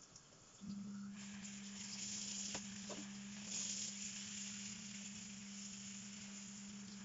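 Kitchen tap turned on about half a second in: a steady hum from the pipes, then the hiss of running water that swells at moments as it splashes, with a few light clinks of dishes.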